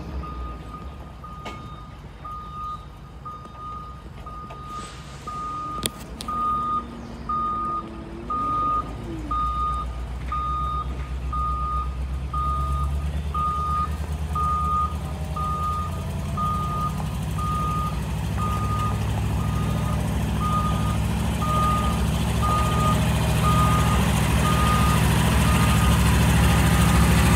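International S1900 logging truck backing up, its reverse alarm beeping about once a second over the engine. The engine grows louder from about a third of the way in.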